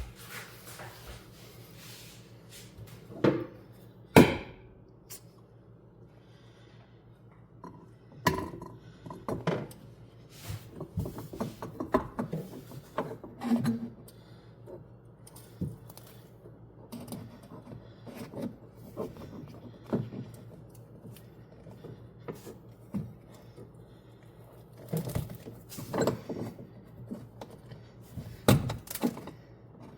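Intermittent knocks, clunks and light rattles of metal parts and tools being handled during work on a car's throttle cable and pedal, with one sharp knock about four seconds in, over a faint steady hum.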